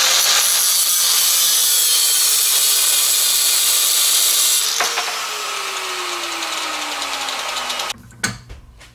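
Angle grinder with a thin cut-off wheel cutting through a steel bolt held in a vise, a loud, steady, high-pitched grinding hiss. About five seconds in there is a click and the cutting stops, and the grinder's motor winds down with a falling whine for about three seconds before the sound stops abruptly; a few faint knocks follow near the end.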